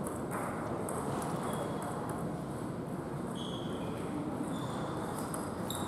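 Light, scattered clicks of a table tennis ball on the table and bats over the steady noise of a large hall, with now and then a short high squeak.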